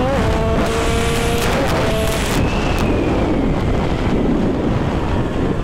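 Tuned Derbi-based two-stroke motorcycle engine running at high revs with a quick dip in pitch just after the start, like a gear change. About two seconds in, the engine note falls away and wind rush from riding at speed takes over.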